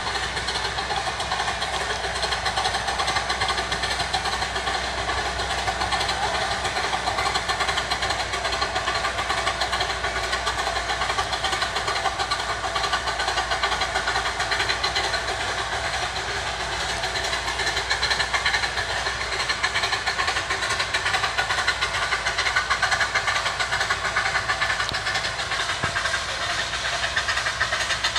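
A 15-inch gauge riding train running steadily along its track, heard from on board: an even mix of wheels on rail and locomotive running noise.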